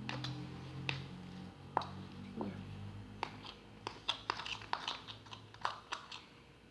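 Sticky clicks and smacks of homemade glue slime being mixed, coming irregularly and most often in the second half.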